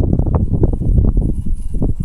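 Wind buffeting the phone's microphone: a loud, irregular low rumble of rapid thumps.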